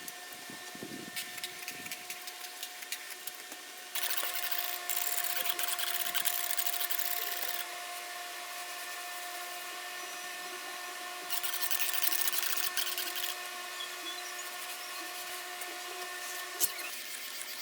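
A small power tool whines steadily at a fixed pitch while cleaning the mill. It turns louder and harsher for two stretches of a few seconds each.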